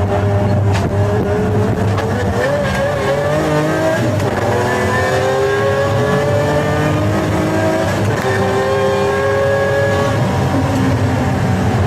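Pagani Zonda F Clubsport's 7.3-litre V12 engine running hard. It holds a steady pitch, then climbs in pitch for several seconds as the car accelerates, drops at a gear change about eight seconds in, and holds steady again.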